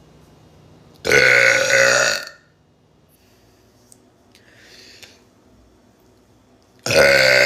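A person belching loudly twice, each burp a long, drawn-out voiced belch over a second long, the second coming about five seconds after the first.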